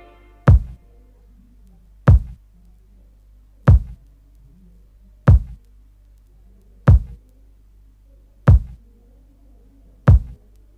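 FL Studio's stock hip-hop kick drum sample playing alone in a steady loop: seven hits, one about every 1.6 seconds, each a deep thump with a short sharp attack.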